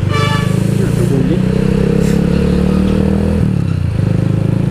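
Keeway CR152 motorcycle's single-cylinder engine running steadily while riding, its note dropping in pitch about three and a half seconds in. A brief high tone sounds right at the start.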